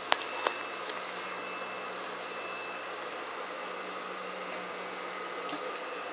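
Steady electric motor hum. A few light clicks and taps come in the first second and again near the end, as fabric is shifted into place under a sewing machine's presser foot.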